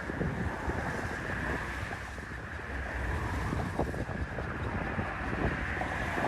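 Strong storm wind buffeting the microphone in a steady, rumbling rush, with waves washing underneath.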